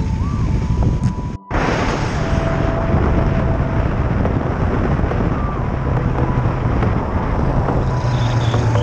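Wind rushing over a helmet-mounted camera's microphone on a moving motorcycle, with the engine running underneath. The sound cuts out for a moment about a second and a half in.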